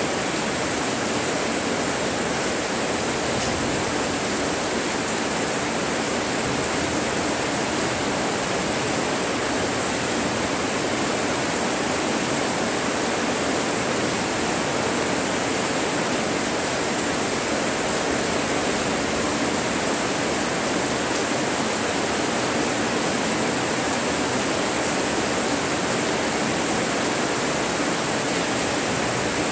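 Monsoon rain falling steadily, an even hiss with a thin, steady high-pitched tone running over it.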